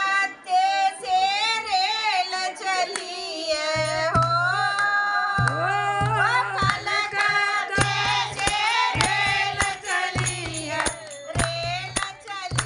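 Women singing a Hindi devotional bhajan together, unaccompanied at first; from about four seconds in, hand claps and a low beat keep time under the singing.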